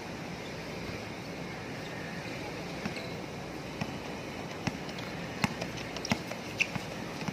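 Basketball dribbled on an outdoor concrete court: after a steady background hiss, sharp bounces begin about three seconds in, coming irregularly about one to two times a second as the ball is brought up the court.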